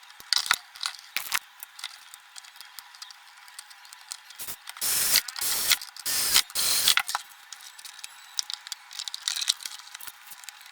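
Handling noises from reassembling a Bluetooth speaker: scattered small clicks and knocks, with four short bursts of hissing rustle around the middle.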